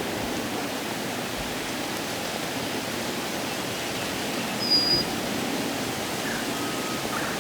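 Steady wind noise buffeting the microphone, with a brief high chirp from a small bird a little past the middle.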